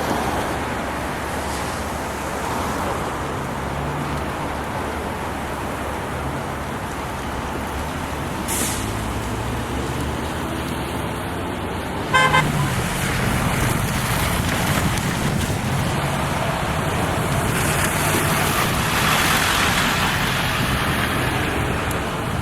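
Street traffic, with car engines running and passing. There is a short horn-like toot about twelve seconds in.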